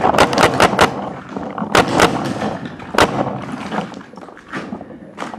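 Paintball markers firing: a quick string of about six shots in the first second, then single shots spaced out, growing fainter toward the end.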